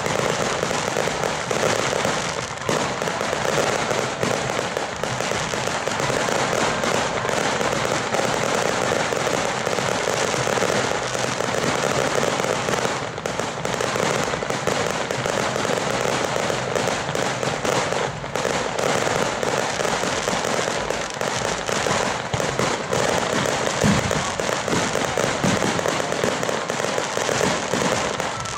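Ground-level fireworks going off in a dense, unbroken barrage of crackling bangs.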